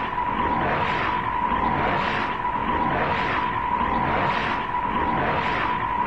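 Looping robot sound effect of the space robot King Joe Black: a steady high hum with a hissing whoosh that swells and fades about once a second over a low rumble.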